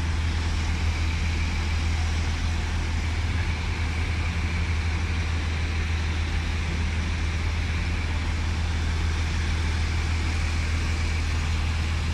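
City bus engines idling at the station bays, a steady low hum with an even rush of noise over it.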